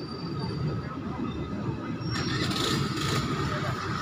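Freight train wagons and brake van rolling past on the rails: a steady rumble of wheels on track, with brighter metallic clatter coming in about halfway through.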